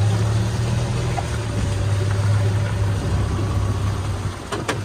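Gas golf cart engine running steadily as the cart drives. Two sharp clicks come near the end as the engine sound drops away.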